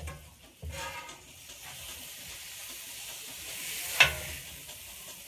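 Thin-sliced top round sizzling on a hot Blackstone flat-top griddle while it is scraped and scooped together, with a sharp clack of metal on the griddle about four seconds in.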